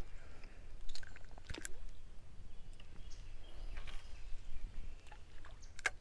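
Scattered short clicks and rustles from handling the rod and reel, over a steady low rumble of wind on the microphone.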